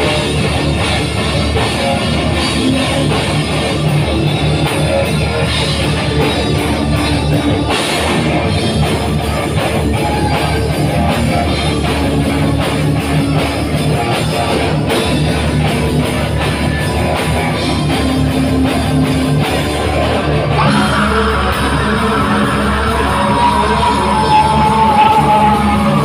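Heavy metal band playing live: distorted electric guitar, bass and drum kit, with vocals. About three quarters of the way through, a higher held melody joins in.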